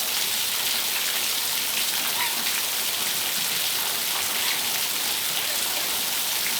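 Steady rain falling on a patio, an even hiss of drops on hard surfaces, with a faint short chirp about two seconds in.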